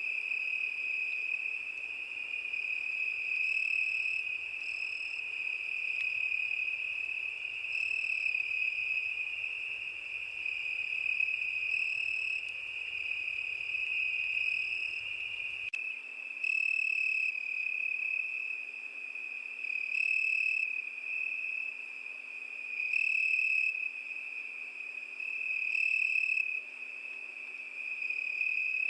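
Crickets singing: a steady high-pitched trill that swells a little louder every three to four seconds.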